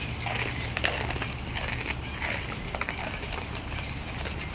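Fallow deer crunching dry, uncooked noodles from a bowl: irregular sharp crunches as they chew. A short, high, falling chirp repeats about every three-quarters of a second, over a steady low hum.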